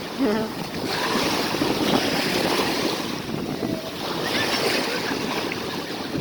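Sea waves washing onto the shore in repeated swells that rise and fall every couple of seconds, with wind buffeting the microphone.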